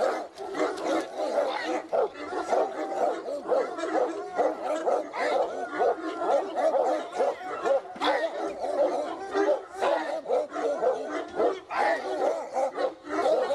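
Fila Brasileiro barking over and over in quick succession, with no real break.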